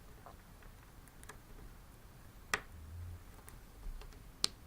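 A few small clicks and ticks of a 3.5 mm plug and cable being handled and seated in a headphone splitter, two sharper clicks standing out about halfway and near the end. No music comes through the connected speakers: the splitter passes no signal.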